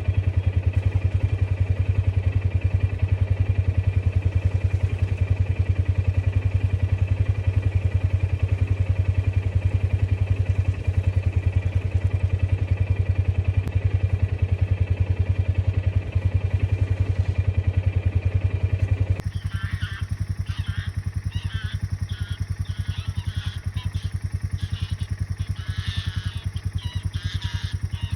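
Side-by-side utility vehicle's engine running steadily under way. About two-thirds of the way through, the sound changes abruptly: the engine is quieter, with a run of short, repeated sharp sounds over it.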